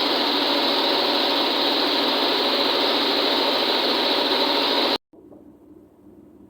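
A motor running steadily with a loud, even whir, cutting off abruptly about five seconds in and leaving only a faint low hum.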